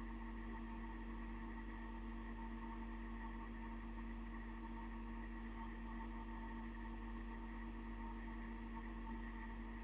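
Steady background hum made of several constant tones over a faint hiss, unchanging throughout.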